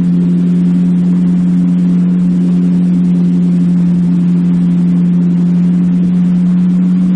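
Jet ski engine running at a steady cruising speed: a constant, unchanging drone under an even rush of wind and water noise.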